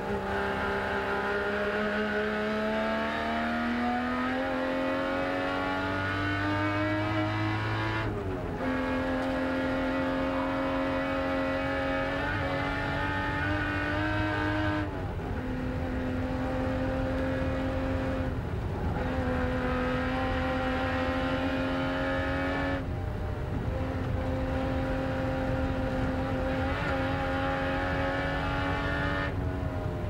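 Jaguar XJS racing V12 engine at full race pace, heard from inside the cockpit. The note climbs through a long pull for about eight seconds, breaks off and comes back lower. It then holds a steadier pitch, cut by short breaks four more times.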